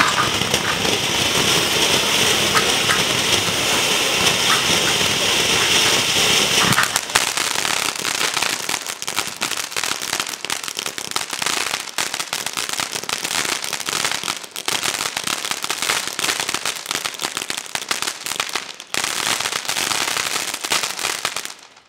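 Poker Face (DM705) fireworks fountain burning: a steady rushing hiss of sparks, changing about seven seconds in to dense rapid crackling that runs on until it stops suddenly near the end.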